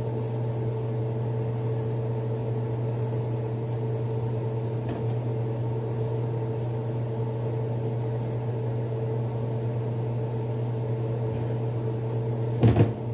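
Steady low electrical hum of a running kitchen appliance or fan, with a brief knock near the end.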